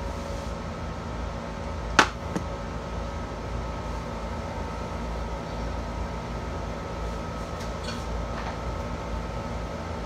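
Steady hum of a running fan or small motor, with a faint whine over it. A single sharp knock comes about two seconds in, followed quickly by a fainter one.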